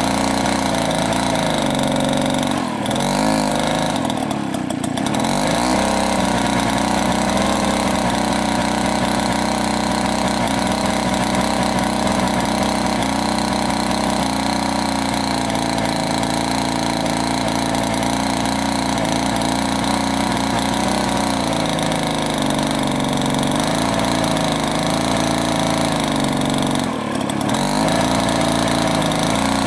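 Mall Model 8 two-man chainsaw's petrol engine running steadily as the saw cuts through a large log. Its note wavers briefly a few times.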